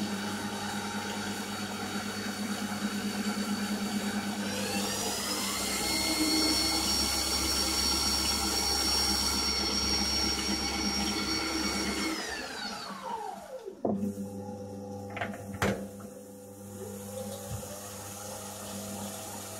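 Metal lathe's motor and spindle running with a steady whine. About five seconds in the pitch rises as the speed goes up and holds, then falls away as the spindle winds down about fourteen seconds in. A few sharp clicks follow, then the lathe runs again at a lower pitch.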